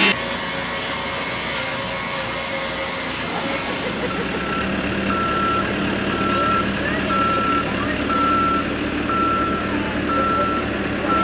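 A vehicle's reversing alarm beeping at a steady pace, a little more than one beep a second, starting about four seconds in, over the low running of its engine.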